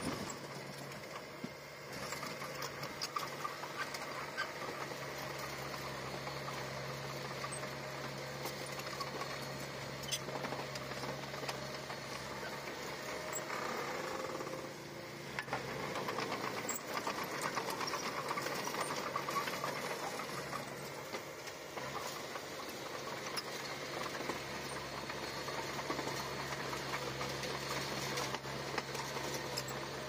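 Komatsu bulldozer's diesel engine running steadily while working, with scattered clanks; the engine note dips and recovers about halfway through.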